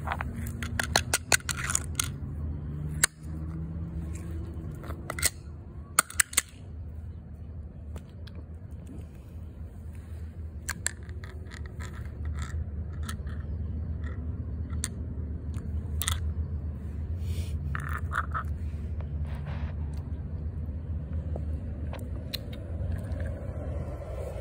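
Metal cat-food can handled and its food scraped out onto the lid on concrete: a quick cluster of sharp clicks and scrapes over the first six seconds or so, then a few scattered small clicks, over a steady low hum.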